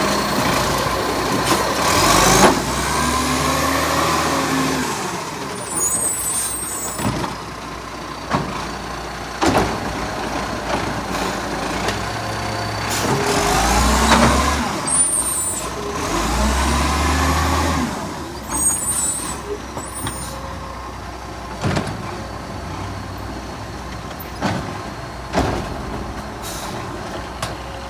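Garbage truck diesel engine revving up and easing off three times, with short hisses of air from its air brakes and scattered sharp knocks. The truck has a small exhaust leak.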